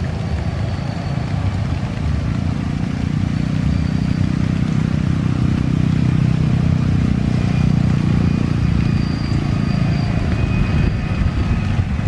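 Twin-engine jet airliner at takeoff power rolling down the runway, a deep rumble that swells over the first several seconds with a thin, steady engine whine above it. Rain hisses underneath.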